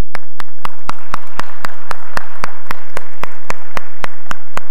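Audience applauding. One person's claps stand out well above the crowd, in an even beat of about four a second.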